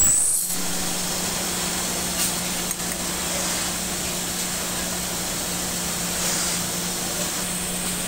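A machine running steadily: a constant low hum under an even hiss.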